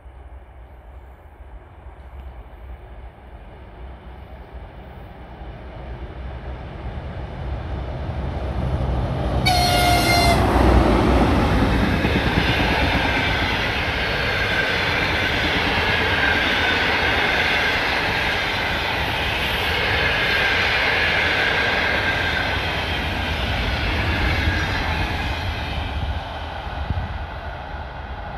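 An ЭП20 electric locomotive hauling a passenger train passes at speed. The rumble builds as it approaches, a short horn blast sounds about ten seconds in as the locomotive arrives, and then the carriages rush past with steady wheel and rail noise until it eases near the end.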